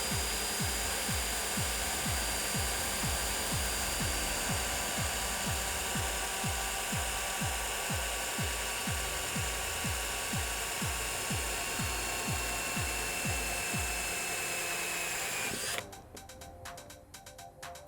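Electric drill with the kit's hole-saw bit running steadily, its whine slowly dropping in pitch, then cutting off suddenly near the end, followed by fast regular clicking.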